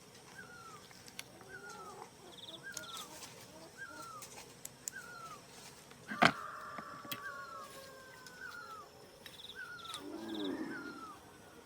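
A short bird-like call repeating steadily about every three quarters of a second, with a single sharp knock about six seconds in, the loudest sound here. Near the end comes a low, drawn-out animal call that falls in pitch.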